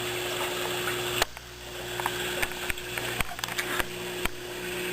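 Aquarium pumps running, a mag drive pump and protein skimmer among them: a steady low hum under a hiss of water and bubbling, with a few sharp clicks. A sharp click comes about a second in, after which the hiss briefly drops.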